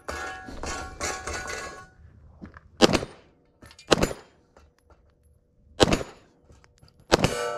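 Glock pistol shots fired singly at long-range steel targets, four shots spaced one to two seconds apart. Steel rings out at the start and after the last shot, the sign of hits on the plate.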